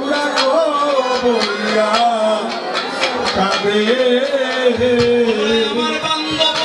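Bengali kirtan music: a male singer over sustained harmonium-like chords, with a steady beat of sharp drum and hand-cymbal strikes.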